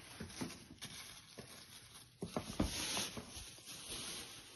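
Soft handling noises of cardboard cosmetic boxes and packaging: scattered light knocks and rustling, with a louder rustle about halfway through.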